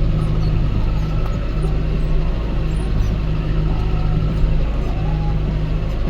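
Tractor diesel engine running steadily under load while pulling a plough. Its low drone swells and eases every second or so.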